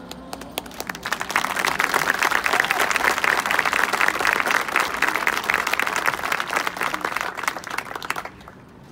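Audience applauding. The clapping builds over about the first second, holds for several seconds and falls away sharply near the end.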